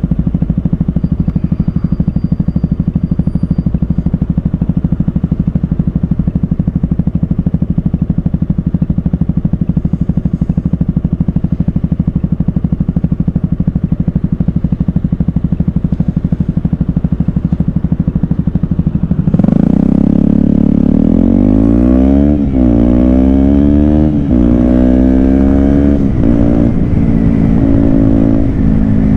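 KTM Duke 125's single-cylinder four-stroke engine running at a steady low speed. About two-thirds of the way in it gets louder as the bike pulls away, and the engine note rises and falls back several times as it shifts up through the gears.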